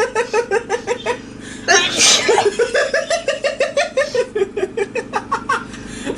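A girl's loud sneeze about two seconds in, between long runs of rapid, pulsing laughter.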